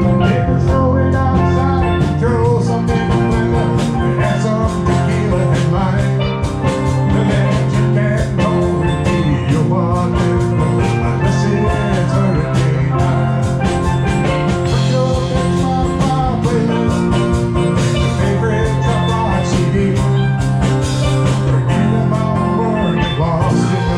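Live band playing an instrumental passage: steel drums over a drum kit, guitar and bass guitar, with a steady beat.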